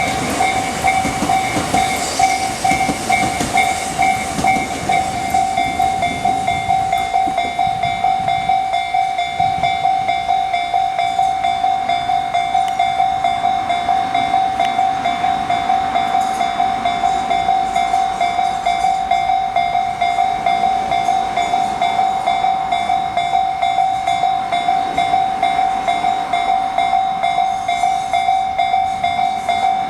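Japanese railway level-crossing warning bell of the Tobu Tojo Line type, an electronic ding repeating quickly and evenly without a break. In the first several seconds the running noise of a passing train fades out under it.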